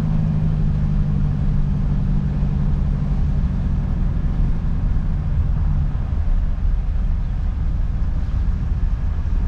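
Tractor engine running steadily while towing a hay baler at slow road speed: a low, even drone that eases slightly about six seconds in.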